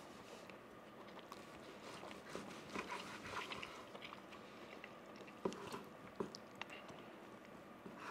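Faint chewing of a bite of ribeye steak, with a few soft clicks scattered through it.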